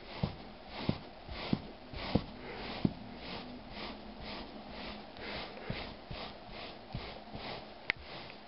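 Hand-held pet-hair remover brushed back and forth over a wool blanket: scratchy rubbing strokes, about two a second. There are dull knocks in the first three seconds and a sharp click near the end.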